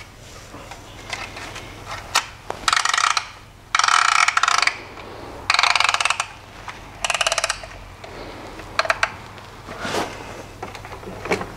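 Ratchet-type piston ring compressor band being wound tight around a piston with its key, squeezing the new rings into their grooves before the piston goes into the bore. The ratchet clicks rapidly in four short runs, with a few single sharp metal clicks between them.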